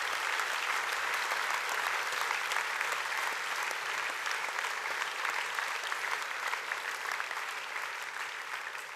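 An audience applauding, steady many-handed clapping that begins to fade near the end.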